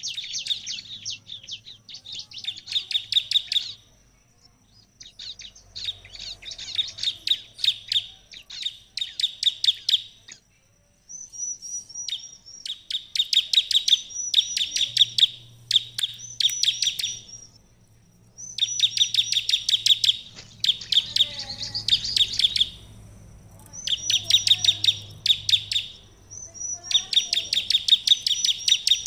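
Bar-winged prinia (ciblek) singing in full voice: phrase after phrase of rapid, evenly repeated sharp chips, each burst lasting a second or two with short pauses between. A thin steady high note carries on through the pauses.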